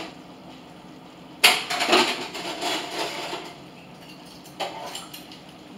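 Dishes and utensils clattering in a kitchen sink during washing up: a sharp loud clatter about a second and a half in that rattles on for a couple of seconds, and a shorter one later.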